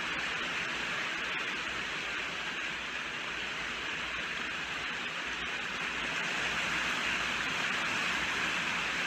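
Steady heavy rainfall, an even hiss of falling rain with no distinct drops or thunder.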